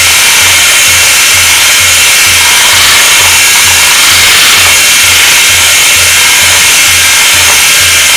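Electric hand mixer running steadily, its twin beaters whirring through a thin cream mixture, over background music with a low beat about twice a second.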